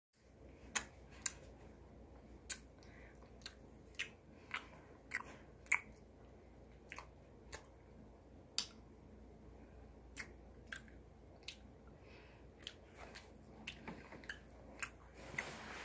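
Someone chewing mouthfuls of plain cooked white rice eaten by hand, with sharp mouth clicks coming irregularly about one or two a second. A louder rustle comes in near the end.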